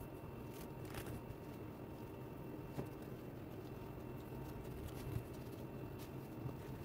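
Faint, scattered soft taps and pats of gloved fingers pressing potato dough logs flat on a stone board, over a steady low hum.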